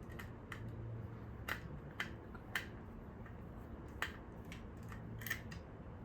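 Scattered small clicks and taps, about eight of them at uneven intervals, as a precision screwdriver works stuck screws out of a Roomba's plastic housing.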